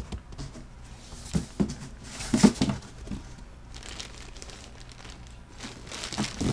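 A large cardboard box handled and tipped up by hand: cardboard and plastic packaging rustling and scraping. There are a few short bursts in the first three seconds, a quieter spell in the middle, and more rustling again near the end.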